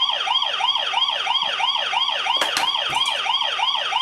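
Wireless doorbell receiver playing its electronic police-siren chime: a fast rising-and-falling wail that repeats about three times a second without a break. A single click sounds about two and a half seconds in.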